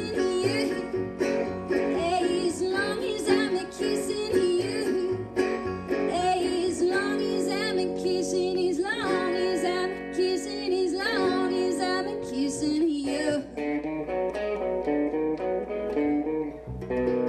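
Small band playing a country-blues song live on resonator guitar, electric guitar and upright double bass, with sliding, bending notes in the middle. The playing thins out near the end.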